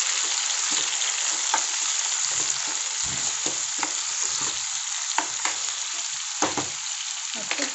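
Chopped tomatoes and onions sizzling steadily in hot oil in a non-stick pan, stirred with a steel spoon that scrapes and clicks against the pan now and then.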